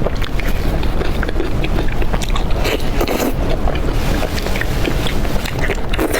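Close-miked eating sounds: irregular wet clicks and crackles of chewing and biting, over a steady low rumble.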